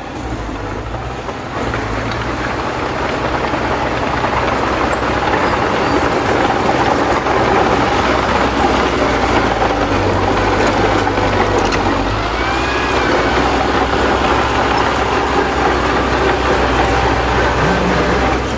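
Small crawler bulldozer's diesel engine running steadily under load while it pushes dirt with its blade, getting a little louder about two seconds in.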